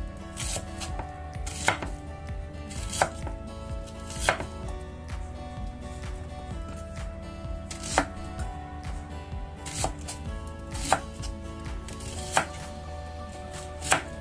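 Kitchen knife cutting a red onion into wedges on a wooden chopping board: sharp knocks of the blade striking the board at uneven intervals, about one every second or two.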